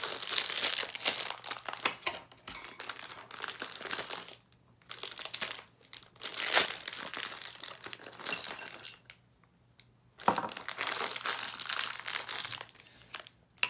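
Thin clear plastic bag crinkling and rustling as hands tear it open and pull out a small plastic figurine. The crinkling comes in stretches with brief pauses.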